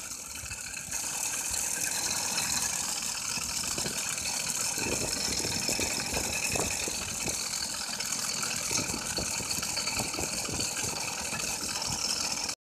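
Bicycle in motion on a paved road: a steady rush of air and tyre noise that picks up about a second in, with scattered knocks and rattles from the bike from about five seconds on. It cuts off suddenly just before the end.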